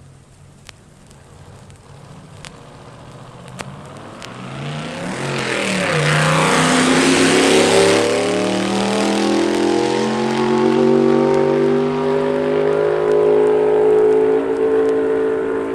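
Drag-racing car engine at high revs, swelling in from faint about four seconds in to loud within two seconds, then holding a steady, slowly rising note. A few faint clicks come before it.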